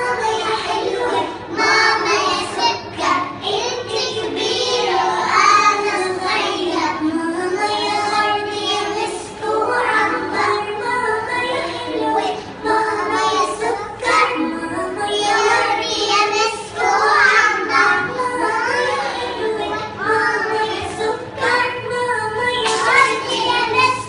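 A group of young children singing a nasheed together.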